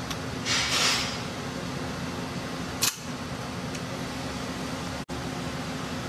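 Hand tools at work on an electronic safe lock: a short scraping rasp about half a second in and a single sharp click near the middle, over a steady background hum.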